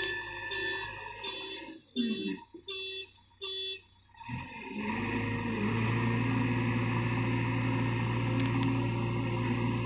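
Background music: a pulsing note pattern repeating about twice a second that breaks up and stops about four seconds in, followed by a steady sustained drone.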